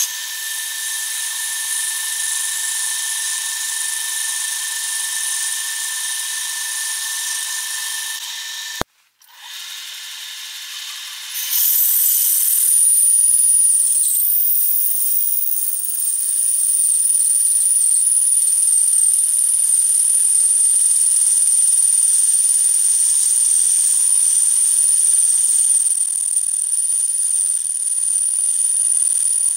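Lathe running while a 14 mm twist drill in the tailstock bores into a spinning cast aluminium blank, a steady mechanical whine. The sound cuts out briefly about nine seconds in, then comes back louder with a high, steady whine from the drill cutting.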